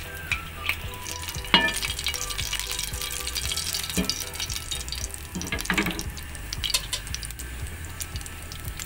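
Cumin seeds and whole dried red chillies sizzling in hot oil for a tadka: a steady frying hiss with scattered sharp crackles.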